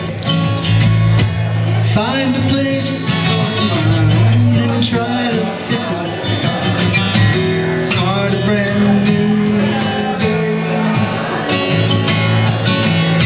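Acoustic guitar strummed live, with a man singing along in a held, gliding melody.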